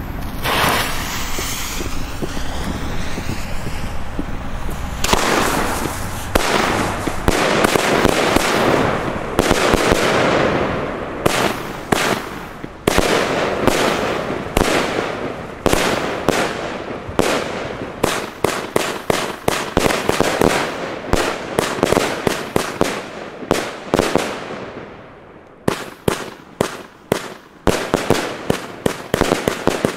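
Funke Blitzgewitter firework battery firing: a fast series of sharp shots begins about five seconds in, each trailing off as the stars burst and fade. Near the end there is a short lull, then a quicker run of shots.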